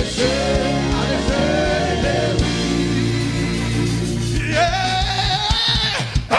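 Gospel worship music: a voice singing long, wavering lines over a sustained low bass accompaniment.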